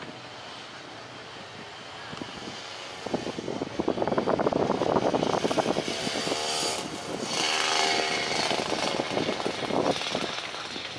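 Motorcycles passing close by on the road: small engines rise to a loud run about three seconds in, hold for several seconds, then fade away near the end.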